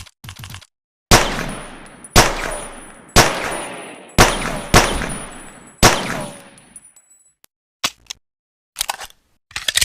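Pocket pistol sound effect: six gunshots spaced about a second apart, two of them in quicker succession, each with a long fading ring. Short clicks come just before the shots and again three times near the end.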